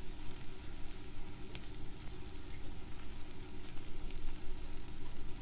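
Chopped onions sizzling in hot oil in a nonstick kadhai on full flame as a silicone spatula stirs them: a steady frying hiss with a few faint clicks.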